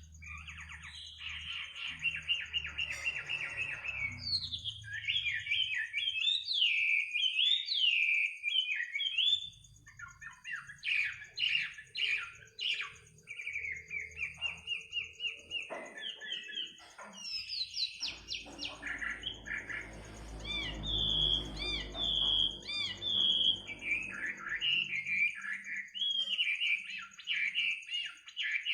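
A songbird singing a long, varied song of fast trills, chirps and slurred whistles, almost without pause.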